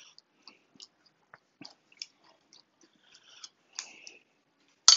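Metal spoon pressing sliced leeks down into buttermilk in a glass measuring cup: soft, scattered wet squishes and light ticks of the spoon against the glass, with one sharper clink near the end.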